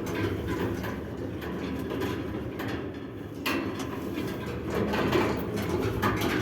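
Passenger elevator built by ShchLZ in 2006, running downward with a steady low, bass creak and mechanical rattle, growing noisier about halfway through.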